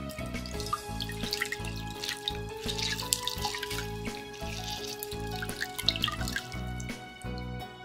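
Water dripping and trickling from soaked kanpyo gourd strips into a glass bowl of water as they are squeezed by hand. Background music plays throughout.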